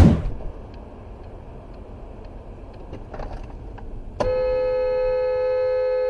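Car horn sounding one steady, single-pitched blast of about two seconds, starting abruptly about four seconds in, over quiet road noise with a few faint clicks.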